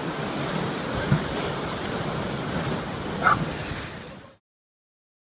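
Storm surf crashing and churning against a sea wall, a steady rush of water with wind buffeting the microphone. A short higher-pitched call cuts through about three seconds in, and the sound fades out to silence a little after four seconds.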